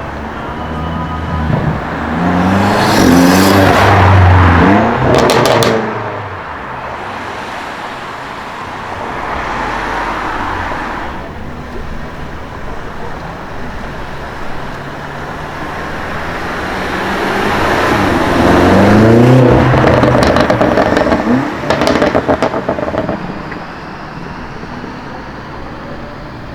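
BMW M5 F90's twin-turbo V8 accelerating hard twice, the engine note rising in pitch each time. Each run is followed by a quick string of sharp exhaust pops and crackles.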